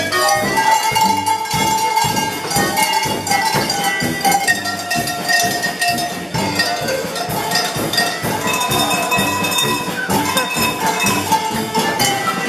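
A set of tuned cowbells played as a tune, ringing at many different pitches in a fast, even rhythm.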